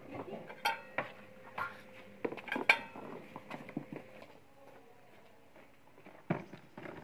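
Clattering and sharp knocks of hard plastic being handled: a knapsack sprayer tank bumping against a workbench, with a faint steady hum under the knocks that stops about four seconds in. It goes quieter after that, with one louder knock near the end.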